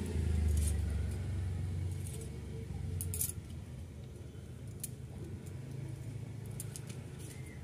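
Raw lote fish (Bombay duck) being cut and handled against a boti blade: scattered short, sharp clicks and light handling noise. A low rumble sits underneath in the first two seconds.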